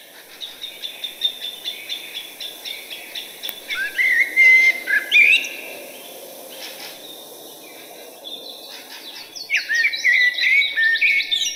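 Bird song: rapid runs of chirps and trills, with a quieter stretch in the middle before a second dense run near the end, over a steady low background noise.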